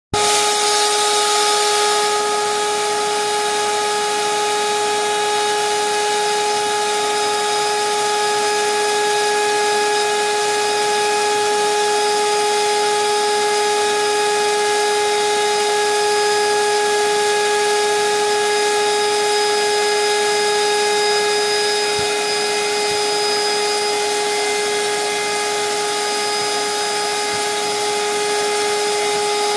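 Household vacuum cleaner running steadily: a constant motor whine over a rush of air, a little brighter and louder for the first couple of seconds.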